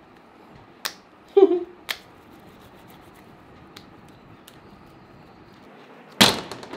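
A few small sticky clicks and smacks from a blue cleaning-gel slime being squeezed in the hands, spaced out over long stretches of quiet room tone. A short, loud rustling burst comes near the end.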